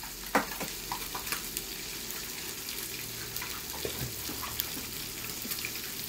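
Pieces of traíra fish frying in hot oil: a steady sizzle with scattered small crackles and pops, and one sharper click about half a second in.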